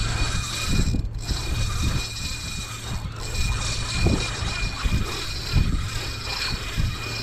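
Fishing reel drag buzzing steadily as a hooked bluefish pulls line off the spool, with a brief break about a second in and again about three seconds in. A low rumble of wind on the microphone runs underneath.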